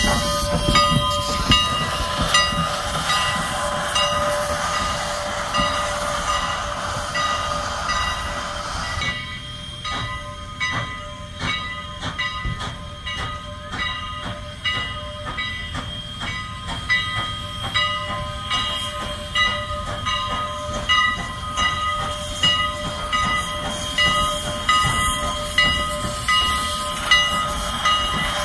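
Strasburg Rail Road No. 89, a 2-6-0 steam locomotive, moving slowly. Steam hisses steadily for the first few seconds, then dies down about nine seconds in, leaving a rhythmic beat with clanking, roughly once a second.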